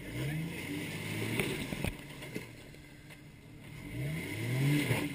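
Off-road Jeep's engine revving in short bursts as it crawls over rocks: the pitch rises at the start and twice near the end, with a few sharp knocks in the middle.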